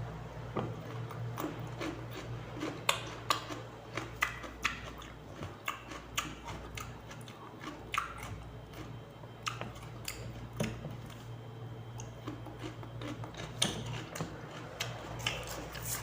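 A person chewing raw cucumber close to the microphone: irregular crisp clicks and wet mouth sounds, over a steady low hum.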